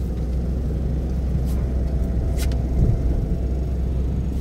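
Steady low rumble of a car driving, heard from inside the cabin, with a brief click a little past halfway.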